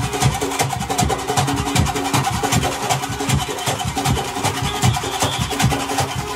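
Costumed street drum band playing on the move: large hand drums beating a fast, dense rhythm, with steady held tones over the top.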